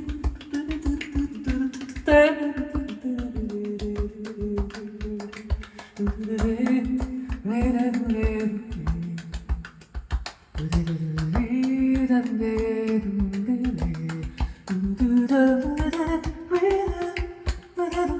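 A song played back from cassette on an Akai GX-73 cassette deck: a sung melody over a rapid, clicking percussive beat.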